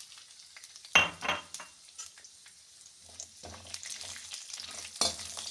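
Cashews frying in ghee in a kadhai and being stirred: a crackling sizzle with spatula scrapes. There is a sharp clatter of metal on the pan about a second in, a quieter lull after it, and the sizzle picks up again past the middle.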